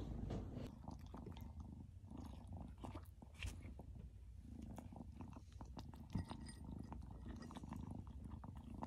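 Kitten eating from a ceramic bowl: faint, irregular small clicks of chewing.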